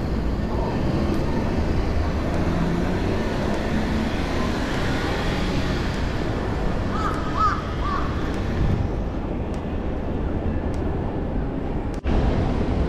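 Steady city street noise: traffic and general urban bustle. A few short calls sound briefly about seven seconds in, and the sound cuts out for an instant near the end.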